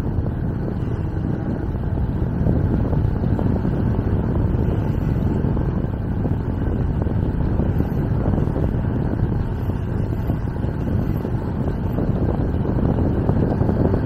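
Wind buffeting the camera's microphone on a moving electric bicycle, a steady low rumble.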